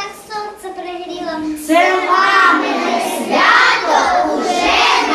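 Children singing: a young girl's voice alone at first, then from about two seconds in several children's voices together, louder.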